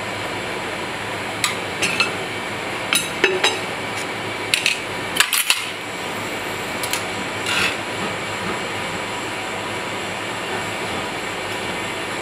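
Metal tongs and utensils clinking against a ceramic plate during plating, a scatter of light clinks over the first eight seconds or so, over the steady hum of kitchen ventilation.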